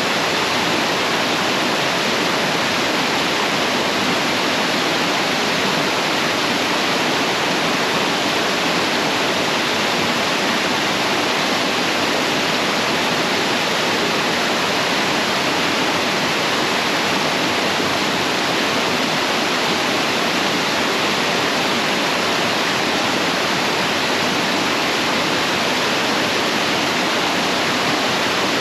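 Steady, unbroken rush of a waterfall on a mountain stream, a dense hiss with no lulls or separate splashes.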